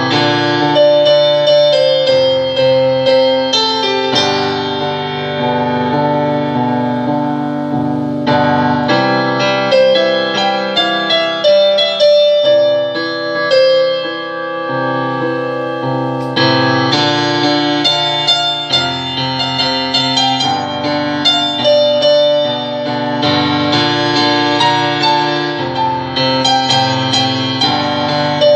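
Solo piano played with both hands: sustained chords under a melody line, with the notes and chords changing every second or so and no break.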